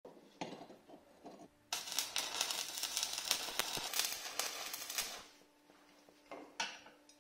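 A stick-welding electrode scratches to strike an arc, then the arc crackles and hisses for about three and a half seconds before breaking off. The welder is homemade from a refrigerator compressor's motor windings. After that a faint steady hum remains, with a couple of sharp taps near the end.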